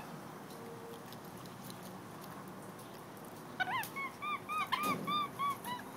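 An animal calling: a quick run of about eight short, arching squeaky calls, one after another, starting a little past halfway.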